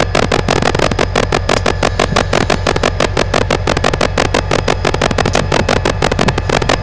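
Diesel-electric freight locomotive's engine running close by, a loud steady low hum with a fast regular pulsing of about eight or nine beats a second.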